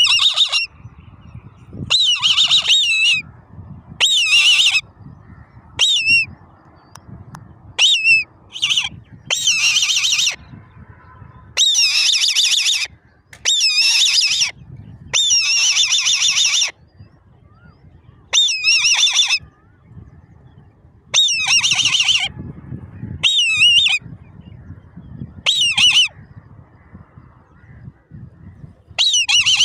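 Young eagles calling from the nest: a series of high, wavering calls in bouts of about half a second to two seconds, repeating every couple of seconds.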